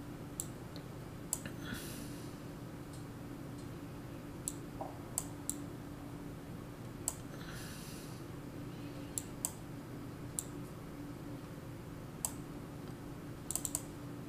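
Scattered sharp clicks, a dozen or so at uneven intervals, with a quick cluster near the end. Two brief rustling swishes come about two and seven and a half seconds in, over a faint steady hum.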